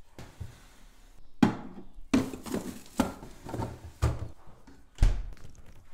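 Plastic drawers of a Bosch fridge-freezer being slid and pushed shut: a handful of sharp knocks and clatters, the loudest about a second and a half in and again near the end.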